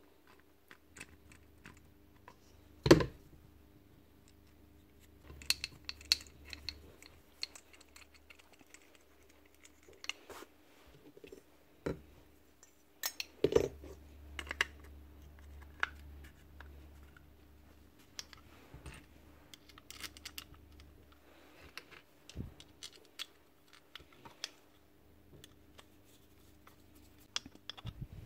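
Scattered light clicks, taps and scrapes of the metal and plastic parts of an ErgoPro F6 clipper head being handled and fitted together, with two louder knocks about 3 seconds in and about 13 seconds in.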